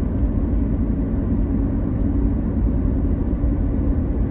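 Steady low road and engine rumble of a car driving at even speed, heard from inside the cabin, with one faint click about two seconds in.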